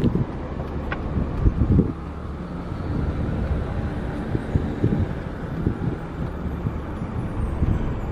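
Outdoor field recording dominated by wind buffeting the microphone: a steady low rumble with irregular gusty thumps.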